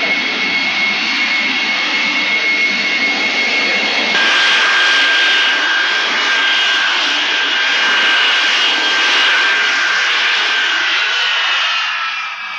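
Jet airliner engines running with a loud, steady high-pitched whine over a rushing roar. About four seconds in the whine jumps to a different pitch, and near the end it falls in pitch as the sound fades.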